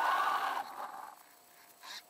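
The electric drive motor and gears of a WLtoys 10428 RC truck whirring, then cutting off about half a second in as the truck comes to a stop. There is one short burst of sound near the end.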